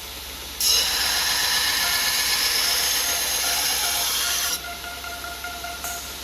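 A steady abrasive hiss, as of the knife steel being ground or sanded, starts suddenly about half a second in and cuts off about four seconds later. Faint background music runs underneath.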